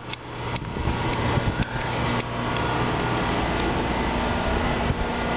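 Demolition excavator's diesel engine running steadily, with several sharp knocks or cracks in the first two seconds.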